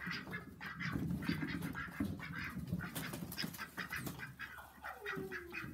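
Ancona ducks quacking in quick, short calls as border collie puppies chase them through straw, with one longer falling call near the end.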